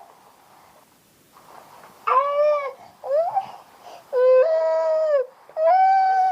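Baby crying: quiet for about two seconds, then a short cry, a brief rising whimper, and two long, level wails of about a second each.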